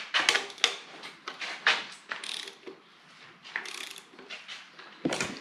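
Socket ratchet on the crankshaft pulley bolt of a Toyota 1UZ-FE V8, clicking and clacking irregularly as it is fitted and worked.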